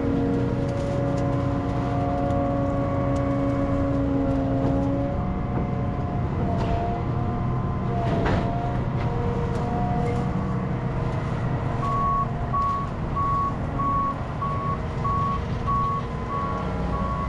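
Harvest machinery engine running steadily, its pitch shifting a little about a third of the way in. A back-up alarm starts beeping about two-thirds through, about two beeps a second, as a machine reverses.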